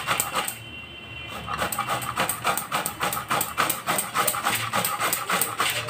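Carrot being rubbed up and down a handheld grater's metal grating plate, a quick, steady run of rasping strokes. There is a short pause about half a second in, then the strokes pick up again.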